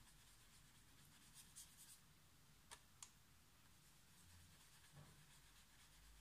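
Very faint scratching of a paintbrush stroking wet paint across watercolour paper, with two small clicks about halfway through.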